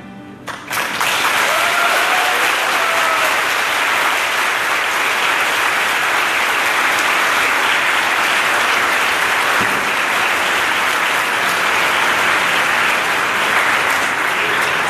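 A large audience applauding, starting suddenly about a second in as the singing ends and holding steady and loud throughout, with a few brief cheers a couple of seconds in.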